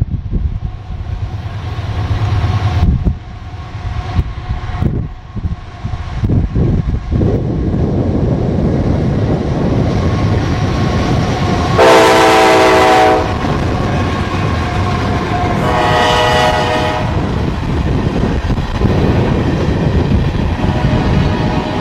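Freight train led by diesel locomotives passing close by, the engines rumbling. The air horn sounds one loud blast of about a second about 12 s in, then a second, longer blast about 16 s in. Near the end the tank cars roll past with wheels clicking over the rail joints.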